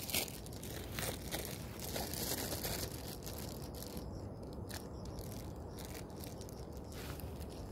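Mango leaves rustling and tearing as they are stripped off a branch by hand, with scattered crackles. It is busiest in the first few seconds, then turns quieter with a few single clicks.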